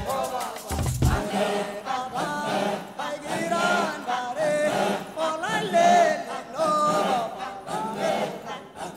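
Title theme music with chant-like choral singing; deep bass notes drop out a little over a second in.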